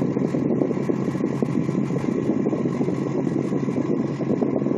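2007 Nissan Versa's air-conditioning blower fan running steadily on speed three of four: a loud, even rush of air from the dash vents heard inside the cabin, with a steady low hum underneath.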